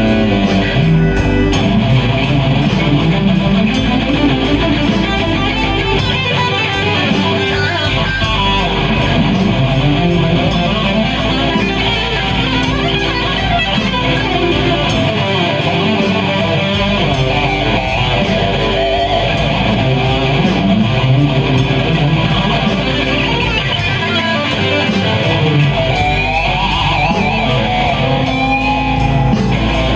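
Blues-rock band playing live: an instrumental passage led by electric guitar over bass, with a steady beat.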